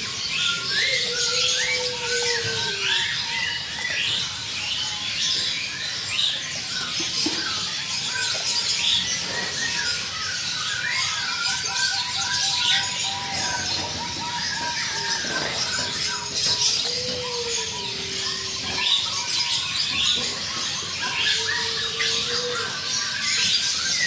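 Many caged birds calling at once: dense, overlapping chirping and twittering, with a dove's low, drawn-out falling coo heard three times, near the start, about two-thirds through and near the end.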